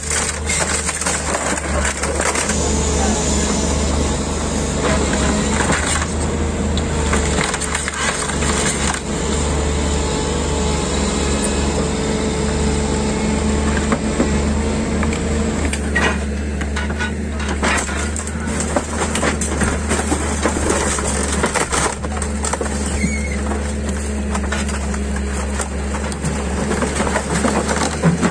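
Diesel excavator with a hydraulic demolition grab running steadily while it crushes and rips apart a shack of wood, metal sheeting and tarpaulins, with repeated crunching and cracking of the debris.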